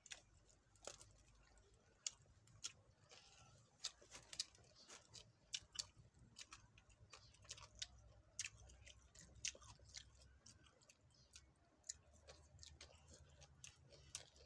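Faint close eating sounds: irregular crunchy clicks and smacks of chewing papaya salad and raw greens, mixed with fingers picking through the food in a metal tray.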